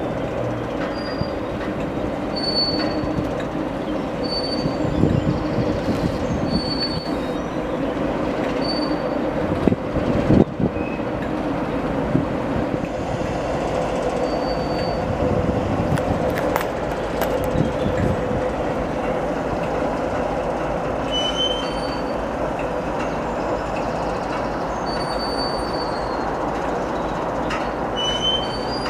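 A train rolling steadily through on the rails, with short high-pitched wheel squeals every second or two and a sharp clunk about ten seconds in.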